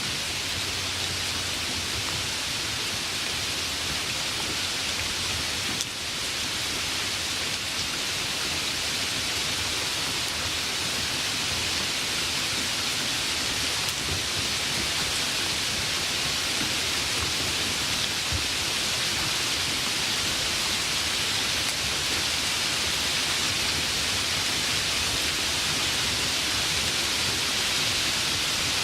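Light rain falling steadily: an even, unbroken hiss of drops, brightest in the upper range, with no single drops or thunder standing out.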